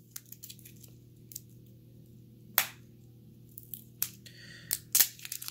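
Protective plastic film being peeled off a stylus pen by hand: scattered small crinkles and clicks, one sharper click about two and a half seconds in and a run of clicks near the end, over a faint steady hum.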